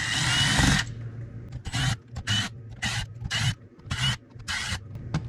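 Cordless drill/driver with a T25 Torx bit backing out the screws that hold the top of an Edelbrock 1406 carburetor: one longer run, then a string of short trigger bursts about two a second.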